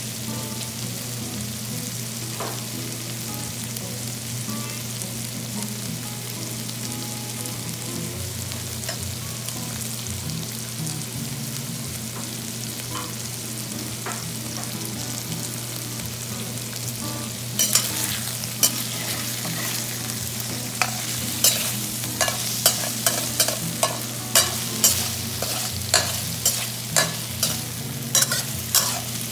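Shrimp and diced carrots sizzling in oil in a stainless steel wok, over a steady low hum. A little past halfway a metal spatula starts scraping and clacking against the pan, about two strokes a second.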